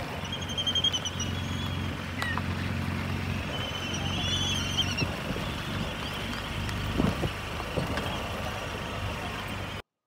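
Laysan albatross colony: a couple of high, wavering calls from the birds, about half a second in and again around four seconds, over a steady low motor hum, with a few scattered knocks. The sound cuts off just before the end.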